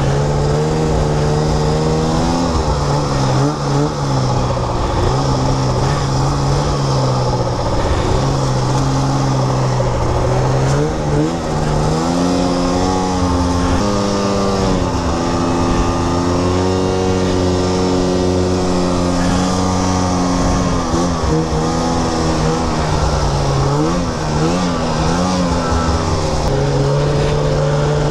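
Snowmobile engine running hard under the rider, its pitch rising and falling as the throttle is worked, with the revs dropping briefly several times.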